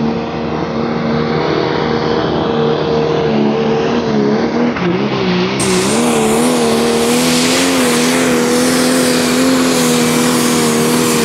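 Pro Stock pulling tractor's turbocharged diesel engine running flat out under full load as it drags the weight sled. It gives one loud, steady drone whose pitch wavers briefly about halfway through, then holds steady again.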